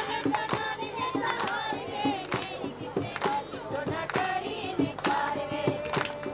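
A group of women singing a folk song together, with hand clapping striking about once a second.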